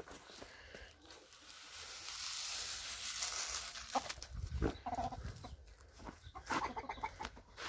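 Chickens clucking in short calls, a few times after the middle. Before that, a steady rushing hiss lasts about two seconds and is the loudest sound.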